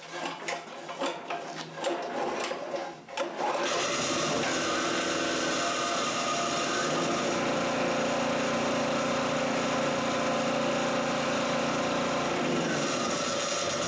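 Chicago Electric 7 HP portable generator pull-started on choke: the recoil starter clatters through a pull and a half, then the small single-cylinder engine catches about three and a half seconds in and runs steadily, its note shifting slightly near the end.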